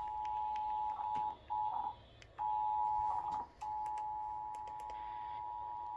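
Emergency Alert System attention signal, the steady two-tone alarm (853 and 960 Hz) that opens an emergency alert, here an Amber Alert. It cuts out briefly about a second and a half in, again around two seconds, and once more about three and a half seconds in.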